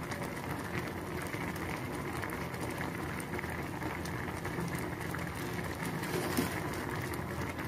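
Pot of Maggi noodles in water boiling with a steady bubbling while a spatula stirs through them.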